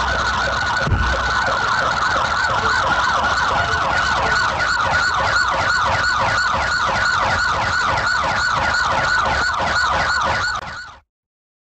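Police car siren sounding in a fast yelp of rapid rising-and-falling sweeps, several a second, over a low vehicle rumble, with a single thump about a second in; it cuts off abruptly near the end.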